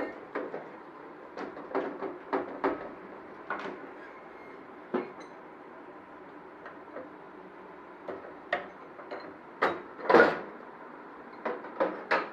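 Irregular knocks and clatters, about a dozen, over a steady hum, with the loudest knock about ten seconds in.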